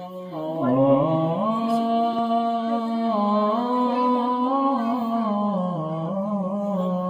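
A solo male voice singing a naat, drawing one long held line out across the whole stretch with slow ornamented turns in pitch. It dips about half a second in, climbs higher about a second in and holds there, then sinks lower near the end before settling back on the opening note.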